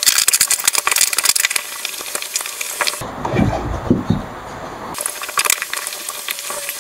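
Monitor arm and its desk clamp being handled and fitted to a desk edge: rapid clicks and rattles of the parts knocking together. The clicking thins out into a duller stretch about three seconds in, then returns.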